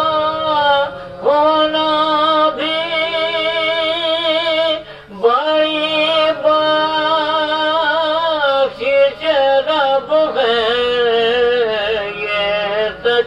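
A man chanting a marsiya, an Urdu elegy, in slow melodic phrases of long held notes with a wavering vibrato. The phrases break briefly about a second in and again about five seconds in.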